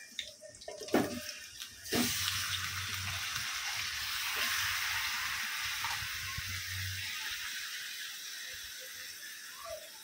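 Raw chicken pieces dropped into hot oil with fried onions, sizzling: a hiss that starts suddenly about two seconds in and slowly dies down, after a single clink about a second in.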